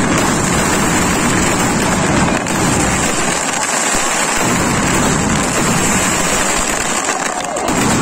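Firecrackers going off in a dense, continuous crackle, loud throughout.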